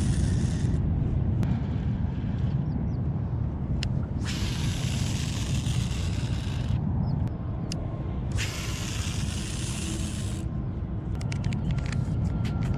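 Wind rumbling on the microphone, broken by three stretches of hiss of about two seconds each that start and stop abruptly. A run of quick clicks comes in near the end.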